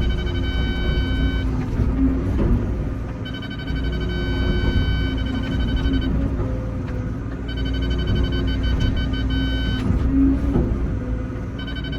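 Excavator's diesel engine running steadily while digging, with a high-pitched whine that comes on for two to three seconds at a time and drops out, about four times.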